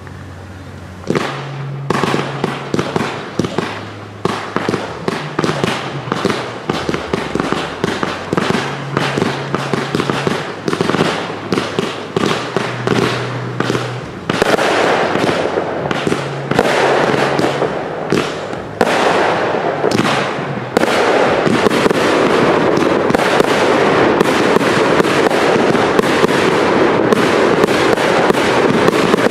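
Firework cakes (compound batteries) firing in quick succession: a dense run of sharp shots and bursts begins about a second in, thickens, and becomes a near-continuous loud barrage from about two-thirds of the way through.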